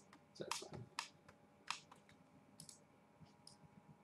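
Several soft, scattered computer mouse clicks against near silence.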